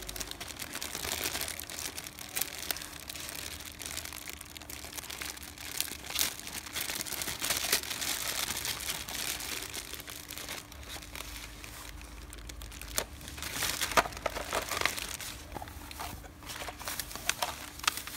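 Thin clear plastic bag crinkling and rustling as hands work it open and pull out a clear plastic part, with irregular sharp crackles.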